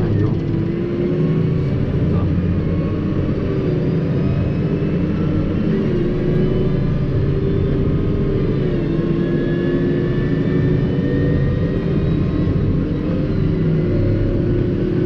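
New Holland T6.180 tractor's diesel engine running steadily while towing a loaded slurry tanker on the road, heard from inside the cab. Its pitch wavers slightly up and down with the throttle.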